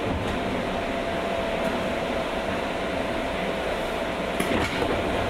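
Interior sound of a JR West 201 series electric train's motor car (MoHa 201): a steady rumble and hiss with a faint steady tone, and a short clatter about four and a half seconds in.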